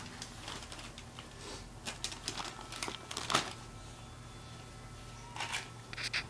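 Shiny gift wrapping paper crinkling and rustling in short, scattered bursts of crackles as it is handled, with a louder crackle about three seconds in.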